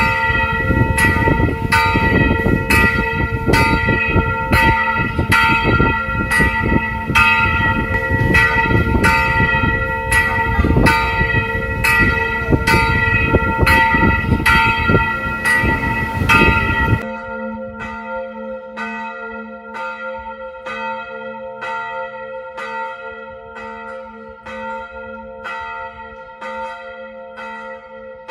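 Church bell ringing in a steady run of even strikes, a little more than one a second, each strike leaving a sustained ring. A heavy low rumble under the bell stops suddenly about two-thirds of the way through, and the bell rings on alone, a little quieter.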